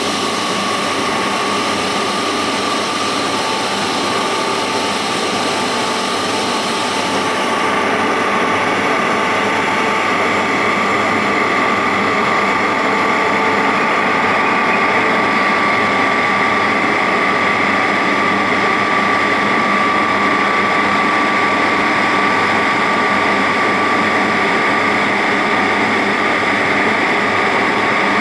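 Electric-driven DGP120 floating fish feed extruder running steadily: a constant machine noise with a steady whine. The high hiss thins out about seven seconds in.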